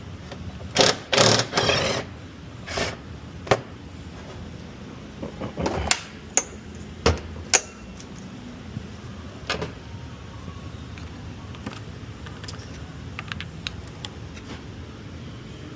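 Metal hand tools and parts clinking and clattering as they are handled, a loud cluster of clatter about a second in, then scattered sharp clicks and knocks.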